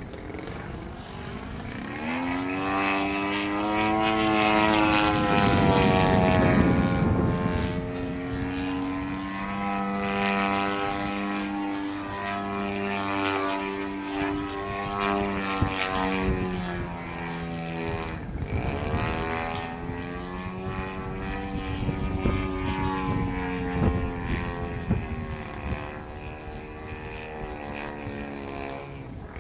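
Radio-controlled model Yak aerobatic plane flying overhead, its engine and propeller buzzing and rising and falling in pitch as it manoeuvres. The sound is loudest about five to seven seconds in, as the plane comes closest.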